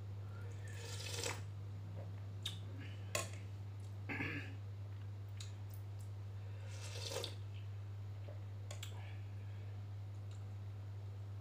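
Eating from a plate of fish bakso soup: a few short slurps of broth and sharp clicks of a spoon against the plate, spread out over a steady low hum.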